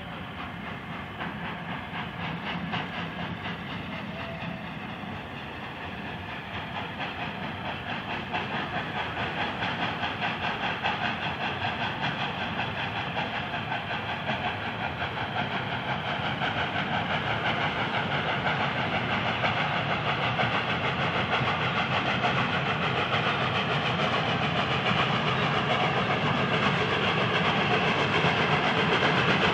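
LNER A4 Pacific steam locomotive 60009 hauling its coaches slowly along the line, the train's running sound and steam growing steadily louder as it comes nearer.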